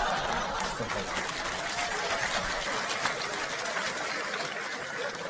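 Theatre audience laughing and applauding after a punchline, a dense crowd of laughter and clapping that is loudest at the start and slowly eases off.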